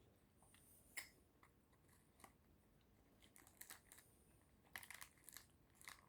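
Faint sounds of a person eating: scattered soft clicks and crunches of chewing and biting, with small clusters of clicks around the middle and near the end.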